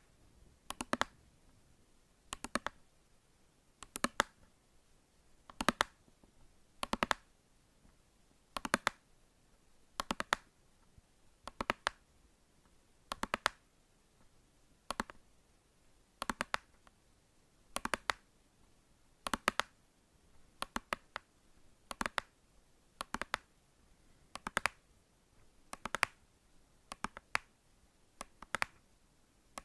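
Sharp clicks in small clusters of two or three, repeating steadily about once every second and a half: an ASMR clicking trigger sound in a small room.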